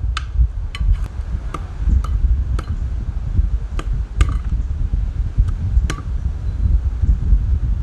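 About ten sharp clinks and knocks of cooking utensils, irregularly spaced through the first six seconds, some with a short metallic ring, over a steady low rumble.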